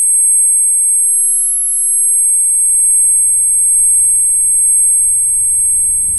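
Steady high-pitched ringing: two pure tones held together without a break, the film sound effect for ringing ears after a shock. A faint low rumble comes in under it about two seconds in.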